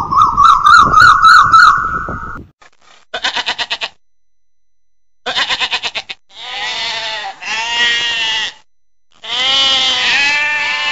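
A bird's warbling trill for about two seconds, then sheep bleating: first two short quavering bursts, then three long drawn-out bleats.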